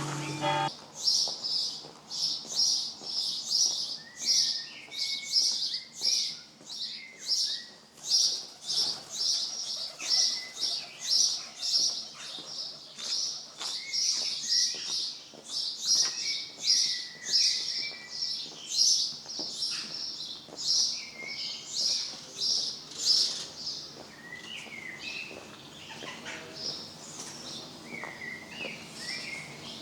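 A small bird calling with a high chirp repeated steadily about twice a second, fading near the end, while other birds give scattered lower chirps.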